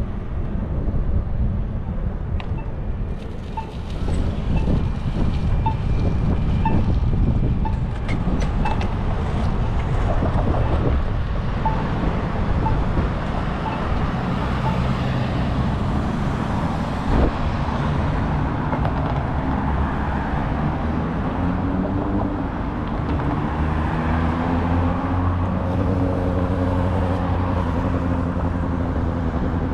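Downtown street traffic heard from a moving bicycle, over a steady low rumble. In the second half a motor vehicle's engine comes up close, its pitch climbing as it accelerates.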